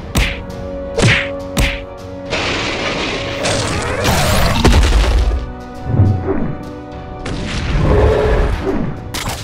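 Sound-effect punches and whacks for a toy superhero fight: several sharp hits early on, a long whooshing rush, then heavy low thumps, over background music.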